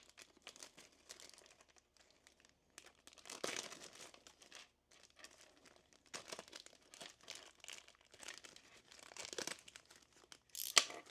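Plastic packaging crinkling and rustling in irregular bursts as small plastic figure parts are unpacked and handled, with a sharper click near the end.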